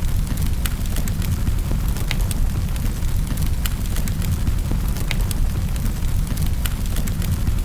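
Fireplace fire crackling: sharp, irregular pops and snaps over a steady low rumble.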